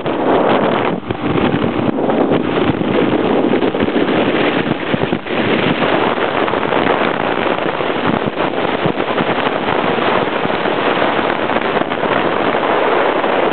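Wind rushing and buffeting over the microphone of a camera carried by a rider on a small 125cc motorcycle at road speed, with the engine running underneath. It is loud and continuous, with irregular crackly gusts.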